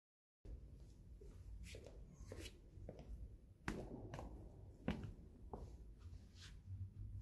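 Faint footsteps and shuffling with several sharp taps and knocks, the loudest two near the middle, and a sheet of paper being handled, over a low steady room rumble. The sound cuts in abruptly about half a second in.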